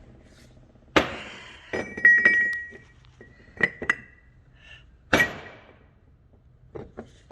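Heavy steel differential parts clanking together and being set down on a workbench. There are half a dozen sharp metal knocks, the strongest about a second in and again about five seconds in, and a couple of them leave a short bell-like ring.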